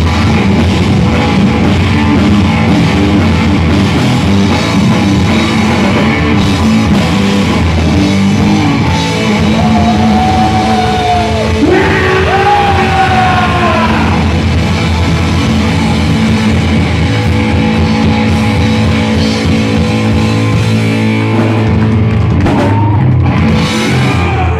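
Hard rock band playing live and loud: electric guitar, bass guitar and drum kit, with a sung vocal line about halfway through.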